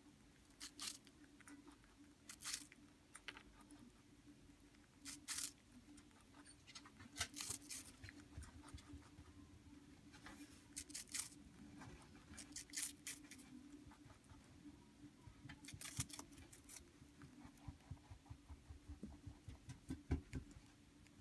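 Holland lop rabbit chewing apple: short, crisp crunches in irregular clusters a second or a few seconds apart, faint overall.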